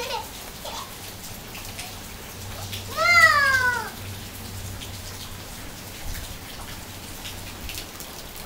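Steady rain falling and dripping onto surfaces. About three seconds in comes one loud, high-pitched wordless call from a toddler, rising then falling in pitch.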